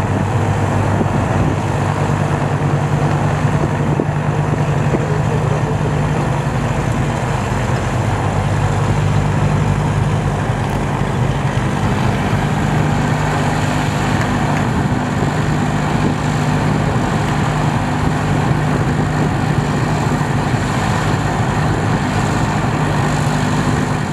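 Beechcraft B60 Duke's twin turbocharged Lycoming six-cylinder piston engines running steadily at low power, with propeller noise. The engine note shifts a little around the middle.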